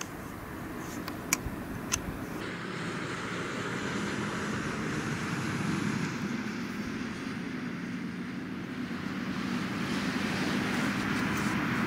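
Steady wind noise on the microphone, with a faint steady hum underneath. There are two small clicks in the first two seconds.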